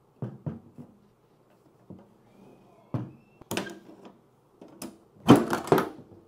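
Steel .50 cal ammo can being handled: a few light knocks as it is set down, clicks from the lid latch, then a loud metal clatter and scrape about five seconds in as the hinged lid is worked open.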